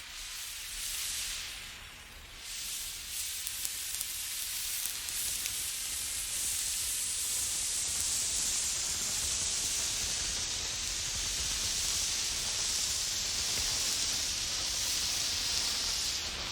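Road emergency flare burning with a high-pitched hiss that grows over the first few seconds and then holds steady.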